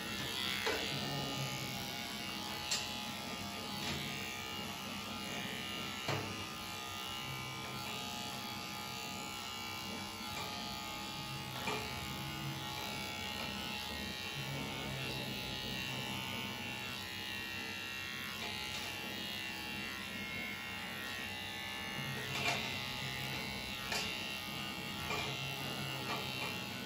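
Corded electric pet clippers buzzing steadily as they shave matted fur off a cat, with a few short sharp clicks along the way.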